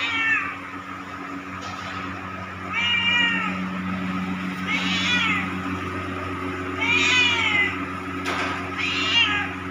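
Domestic cat meowing five times, about two seconds apart, each call rising and then falling in pitch.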